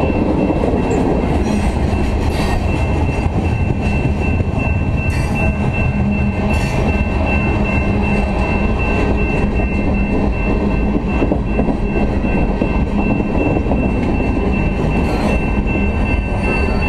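Freight train tank cars and a gondola rolling past close by: a steady heavy rumble of steel wheels on the rails, with a thin high steady tone ringing over it and a few sharp knocks.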